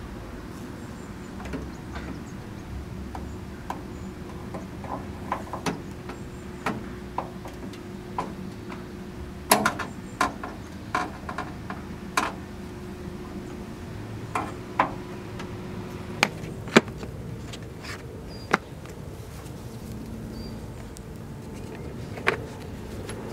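Irregular sharp clicks and knocks of hand tools being handled at a Land Rover's wheel, over a steady low hum. Near the end comes a clack as the socket-set case is handled.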